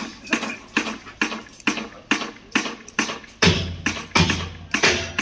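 Background music with a percussion beat: sharp hits about three a second, with deep bass hits twice in the second half.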